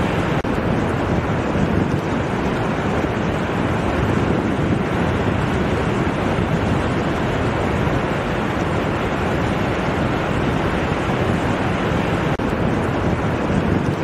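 Ocean surf washing onto a flat sandy beach: a steady rushing of breaking waves with wind on the microphone. The sound cuts out for an instant twice.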